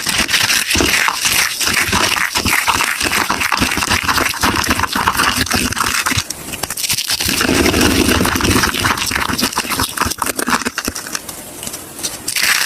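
Soap being crushed and broken apart: a dense run of crunching and crackling, lower and duller for a stretch past the middle, and softer for a moment near the end.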